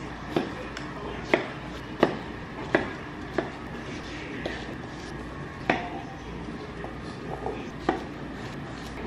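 Kitchen knife chopping cucumber on an end-grain wooden cutting board: sharp knocks of the blade hitting the wood at an uneven pace, with a pause of about two seconds in the middle.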